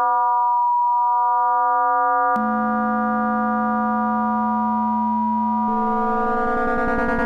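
Synthesized FM drone from chained sine-wave oscillators in an iPad patch: a steady electronic tone with many overtones. About two seconds in it jumps to a lower, denser, buzzier timbre, and near the end it changes again, gaining brighter upper tones and starting to pulse.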